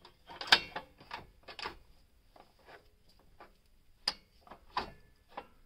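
Irregular metal clicks and knocks as hydraulic hoses and their quick couplers on a tractor loader grapple are handled and worked loose by hand, with the loudest knock about half a second in and a sharp click about four seconds in.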